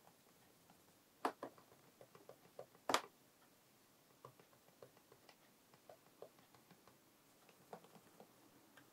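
Faint, scattered small clicks and light scratches from fingers working along the lacquered edges of a guitar body's pickup cavities. Two sharper clicks come about a second and three seconds in.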